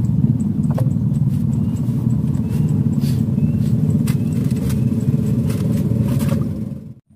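An engine running steadily nearby, a dense low rumble with faint high ticks over it, cut off abruptly near the end.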